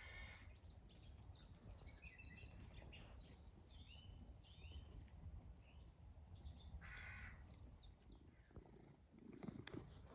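Faint outdoor ambience: a crow cawing twice, once at the start and again about seven seconds in, with small birds chirping in between and a low wind rumble on the microphone. Close rustling near the end.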